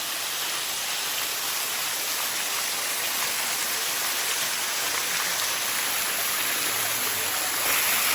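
Water running steadily down the Bua Tong sticky waterfall, an even rushing hiss, a little louder near the end.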